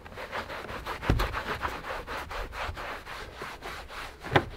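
Dry cloth being rubbed briskly back and forth over a car's plastic and leather interior trim, in quick strokes about four a second, buffing off streaky cleaner residue. There are two louder knocks, one about a second in and a sharper one near the end.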